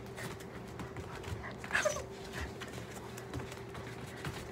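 A dog gives a short whine about two seconds in, over soft footfalls on carpet and a steady low room hum.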